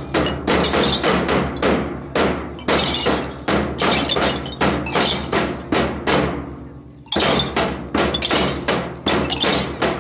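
Many handheld metal cylinders struck together in unison by a mass drill group, a loud clash about twice a second with a short ringing tail. The clashes break off for about a second midway and then resume.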